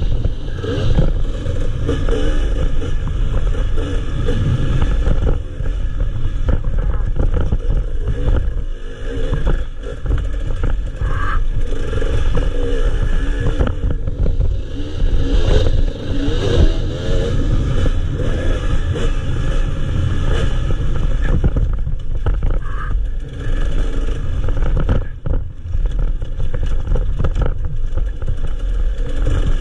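Enduro motorcycle engine revving up and down over and over as the bike is ridden hard along a rough dirt trail, with clattering and scraping from the bike over the bumps.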